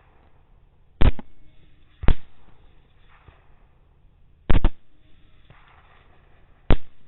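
Suppressed 6.8 SPC AR pistol firing four sharp shots at irregular intervals of one to two and a half seconds. The third report is a quick double crack.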